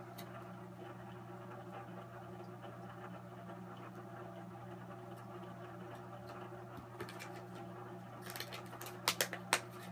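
A steady low hum, with faint rustling as a clear plastic package of soft-plastic craw baits is handled; near the end the package crinkles and gives a few sharp clicks.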